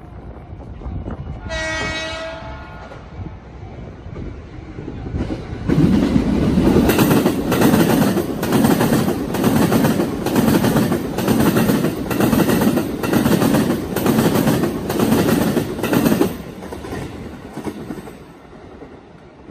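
Keikyu electric train sounding its horn once briefly, a short toot that answers children waving from the footbridge. A few seconds later the train passes close by, its wheels clacking over rail joints in a steady rhythm, about one clack a second, for some ten seconds, then fading away.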